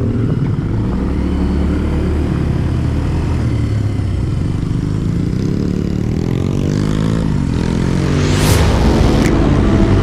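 Small off-road vehicle engine running under way, its pitch rising and falling with the throttle. A brief rushing noise about eight and a half seconds in.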